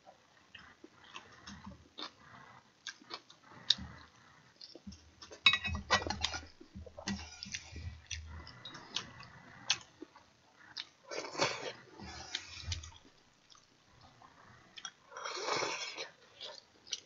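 Eating sounds at a table: chopsticks and a ladle clicking against ceramic bowls and a pot, with chewing, and a slurp of stew broth drunk from a bowl near the end.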